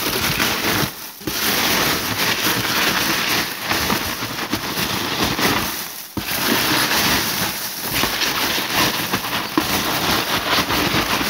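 Polystyrene packing peanuts rustling and crackling as a hand digs through them in a cardboard box, a dense continuous noise with brief pauses about a second in and about six seconds in.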